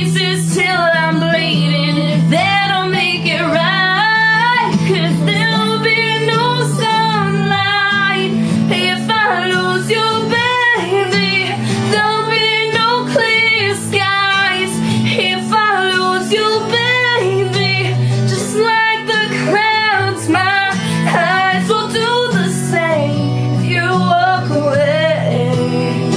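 Song playing: a high voice sings a continuous, wavering melody over guitar and steady bass notes.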